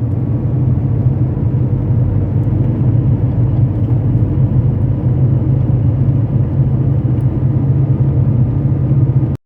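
Car driving, a steady low engine and road rumble that stops abruptly near the end.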